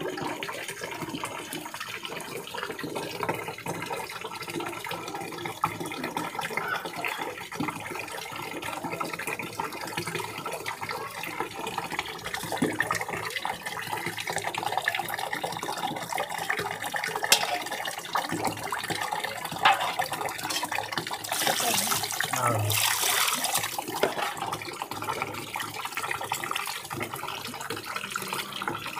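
Water sloshing and splashing in steel bowls as hands rinse and rub a batch of small whole fish. Two sharp knocks come a little past halfway, and a louder stretch of splashing follows a few seconds later.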